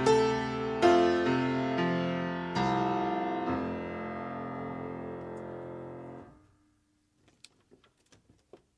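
Piano playing the last slow chords of a piece, ending on a long held chord that fades and is released about six seconds in. A few faint taps and knocks follow.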